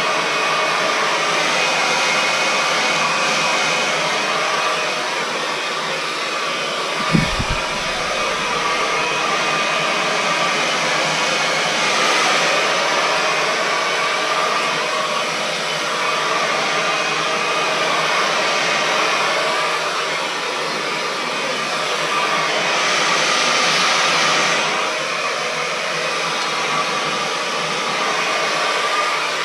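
Remington Hydraluxe Pro (EC9001) hair dryer running steadily with a loud rushing blow, its hiss swelling briefly twice, with one low thump about seven seconds in.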